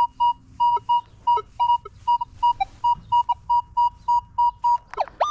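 Metal detector beeping over a buried target in short, evenly spaced beeps of one pitch, about four a second. Near the end a tone swoops down and back up.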